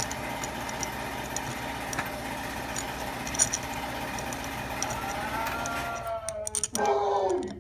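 Steady mechanical hum with a few light metal clicks as bolts are fitted to the fuel pump's governor housing by hand. About six seconds in the hum stops suddenly and a short voice-like sound follows.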